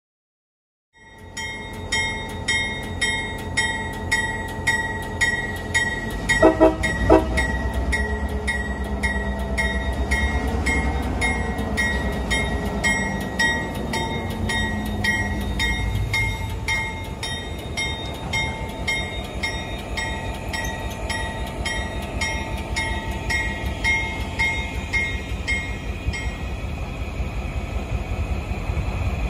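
Railroad crossing bell ringing at an even beat, about one and a half strikes a second, over the rumble of a CSX diesel locomotive. About six seconds in, the locomotive horn gives two short blasts, the usual signal that the train is about to move. The bell stops shortly before the end.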